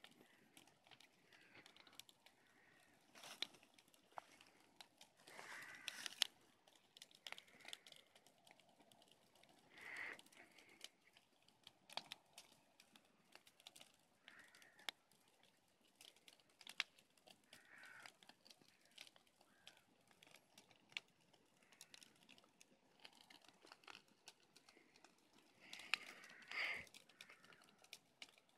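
Campfire crackling faintly: irregular sharp pops and snaps of burning wood, with a few short spells of louder crackle.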